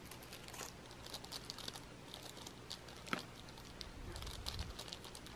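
Faint, scattered crinkling and crackling made of many small crackles, with one sharper click about three seconds in.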